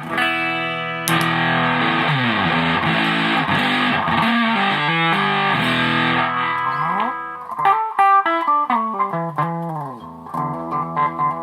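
Electric guitar on its bridge humbucker played through an Arcane Analog clone of the Earth Sound Research Graphic Fuzz pedal: thick, sustained fuzz notes with swooping pitch glides, then quicker picked notes. Near the end the tone turns thinner and quieter.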